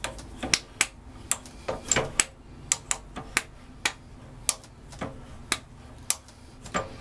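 Capstan turret head on a 7x14 mini lathe being turned round by hand through its tool stations, giving a run of sharp metallic clicks, about two a second at uneven spacing.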